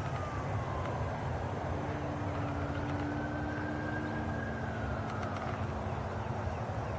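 Electric RC warbird's brushless motor (SUPPO 3520/6) and APC 12x10-E propeller whining in flight, heard from the ground. The thin whine slides down in pitch over the first second, then slowly rises and sags again over a steady background hiss.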